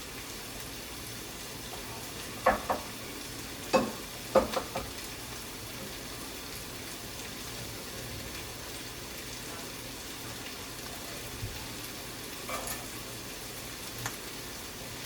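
Chicken frying in oil in a pan, a steady sizzle, with a few sharp knocks of a spoon against the pan about three to four seconds in and two fainter ones near the end.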